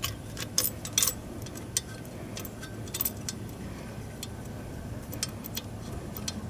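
Light metallic clicks and clinks, scattered and irregular, of a small Allen bolt and the turbo's oil-feed fitting being handled and threaded in by hand, over a faint steady low hum.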